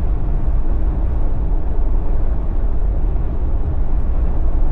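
Steady low rumble of a Jeep on BFGoodrich KO3 all-terrain tyres driving along a road: constant engine and tyre noise with no change in pace.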